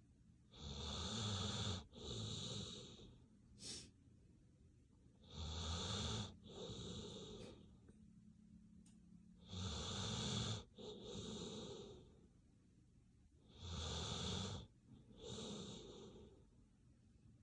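A sleeping dog snoring in a slow, even rhythm: four breaths about four seconds apart, each a pair of snores with the second a little softer than the first.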